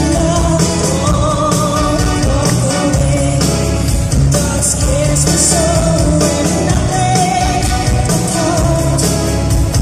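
A pop band playing live: a male lead vocal sings a slow, wavering melody over keyboards and a full band, recorded from the audience in a concert arena.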